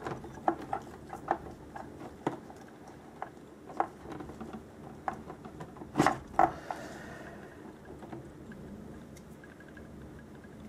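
Hands working inside the plastic hull of a Traxxas Blast RC boat to pull out its battery pack: scattered plastic clicks, taps and rustling of wires, with two louder knocks close together about six seconds in.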